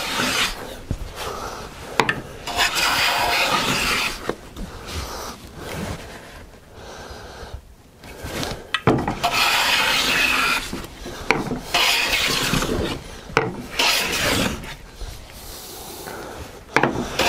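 No. 7 jointer hand plane taking repeated strokes along a white oak board, each pass a rasping hiss of the blade shaving the wood, with a quieter pause around the middle. The blade is set to a light smoothing cut.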